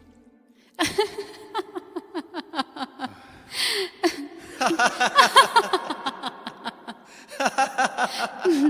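A person laughing in quick runs of short bursts, several bouts with brief pauses between, starting about a second in.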